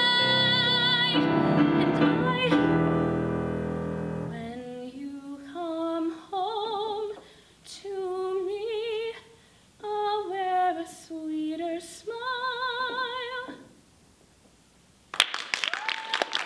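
A woman singing over piano; the piano stops about four seconds in and she sings several short phrases alone, with vibrato. After a short pause, applause breaks out near the end.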